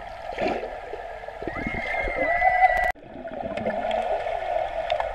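Muffled underwater pool sound heard through an action camera's waterproof housing: steady bubbling and gurgling water, with a drawn-out muffled tone about halfway through. It cuts off abruptly just before the middle and resumes a moment later.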